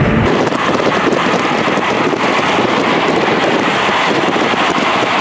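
Steady, loud rush of wind and tyre noise as a road train's container trailers pass close alongside the car.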